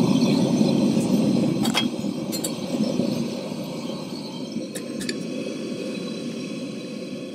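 Gas camp stove burner running under a pot with a steady flame noise that eases lower about two and again four seconds in as the gas is turned down, with a few light metallic clinks from the pot and stove.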